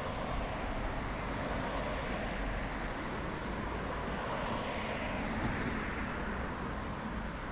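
Steady outdoor city ambience: an even rush of noise with no single sound standing out.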